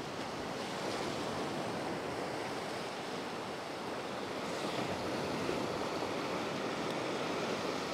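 Small ocean waves surging and washing over a rock shelf: a steady rush of foaming water that swells a little about halfway through.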